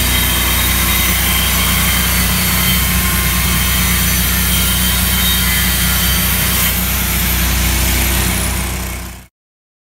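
An engine running steadily and loudly at a constant speed, which cuts off suddenly near the end.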